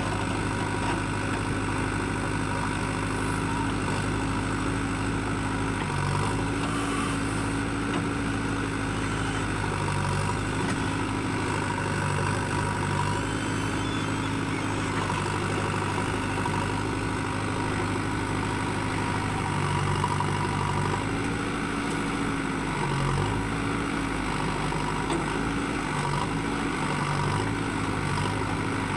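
JCB 3DX backhoe loader's diesel engine running steadily, its note stepping up and down every few seconds as the hydraulics take load while the backhoe digs sand and swings to tip it into a trolley.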